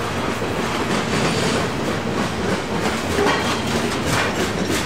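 Freight train of loaded trash cars rolling past, the steady rumble of steel wheels on rail with a few sharper wheel clicks over the rail joints near the end.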